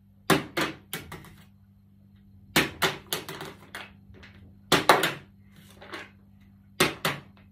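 Plastic bottle with macaroni inside flipped onto a wooden table, four times: each landing is a hard knock followed by a few quick bounces and clatters as the bottle tips over.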